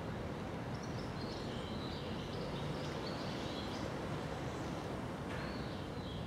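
Steady outdoor background rumble, with faint bird calls chirping on and off high above it.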